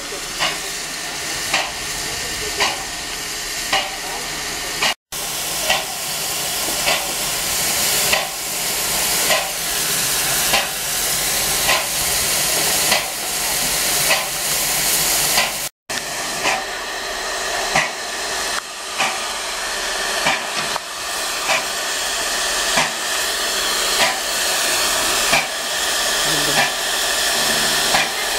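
Standing Bavarian Pt 2/3 steam tank locomotive 70 083 hissing steam steadily, with a regular pulsing beat a little under once a second. The sound breaks off for an instant twice.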